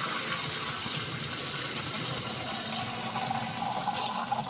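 AI-generated sound effect of water pouring from a faucet onto a metal pan: a steady, continuous stream of running, splashing water.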